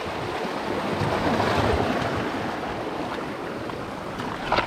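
Sea surf washing against the shore rocks: a wave swells to its loudest about a second and a half in, then eases off.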